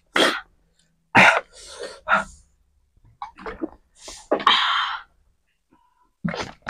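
Several short breathy outbursts, sneeze-like bursts and coughs, from people reacting to the heat of extremely spicy noodles; the longest comes about two-thirds of the way in.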